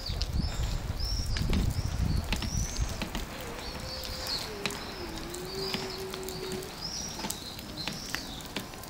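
Plastic toddler tricycle's wheels rolling over asphalt, loudest in the first few seconds, with high chirps recurring about once a second and a faint held tone midway.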